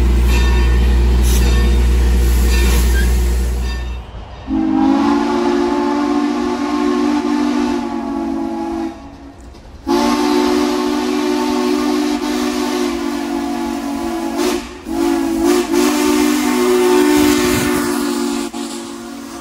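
Steam locomotive chime whistle blowing: two long blasts, a short one, then a long one, the grade-crossing signal. A loud low rumble fills the first four seconds before the whistle.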